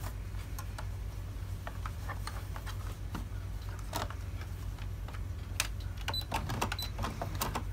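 Scattered light clicks and taps of fabric and sewing clips being handled and set in place at a sewing machine, over a steady low hum; the clicks come closer together near the end.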